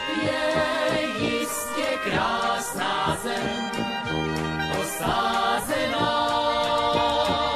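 Music of a Czech song about the homeland: a band playing, with voices singing.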